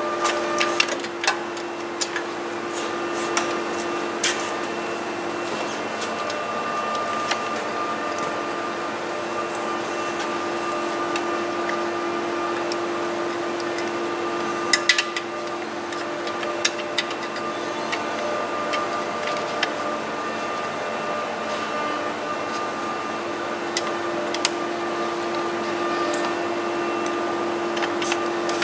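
A steady machine hum, with scattered light clicks and knocks from hands handling parts around a bracket in a vehicle's engine bay; the clearest knocks come about a second in and about halfway through.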